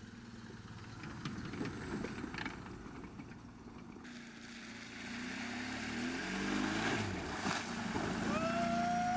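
Small car engine revving under load, getting louder and climbing in pitch in steps partway through. Near the end a high, drawn-out tone rises and holds.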